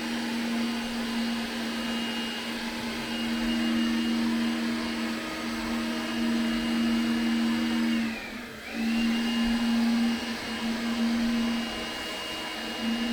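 Makita cordless vacuum cleaner with a brushed (not brushless) motor running with a steady whine. About 8 seconds in it spins down almost to a stop, then starts up again.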